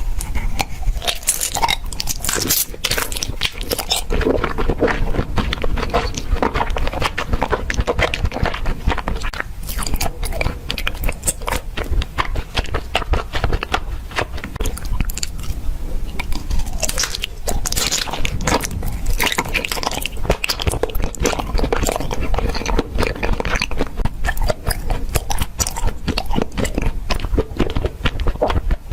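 Close-miked biting and chewing of crisp fresh produce: continuous crunching and crackling with repeated bites.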